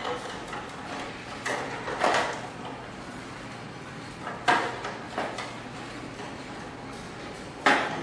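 A handful of sharp knocks and clatters from hands handling a plastic toy birdcage, the loudest about four and a half seconds in and just before the end.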